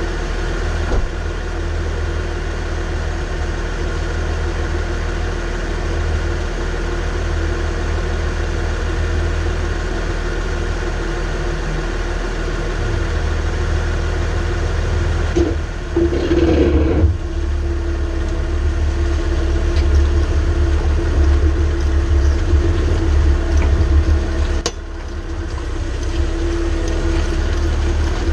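Mercedes ML350 driving, with a steady low rumble and drone from its driveshaft, whose carrier bearing has gone bad. The drone swells briefly louder about halfway through.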